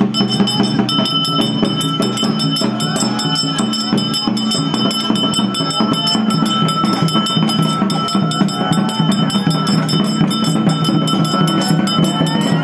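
Temple procession music: a fast, steady beat of percussion with ringing bells and jingles.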